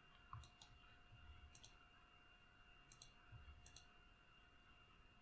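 Faint clicks of a computer mouse and keyboard at a desk: a handful of scattered single and paired clicks, over near-silent room tone with a faint steady whine.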